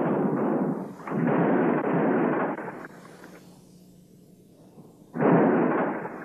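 Dynamite explosions going off one after another. One blast is dying away at the start, a second hits about a second in and carries on for over a second before fading, and a third hits just after five seconds.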